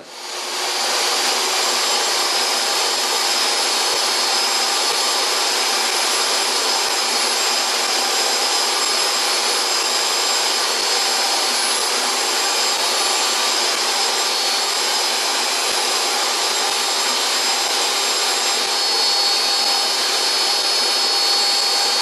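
Ridgid table saw running steadily, its motor and blade giving a constant high whine, while an MDF disc is turned against the blade to trim it round.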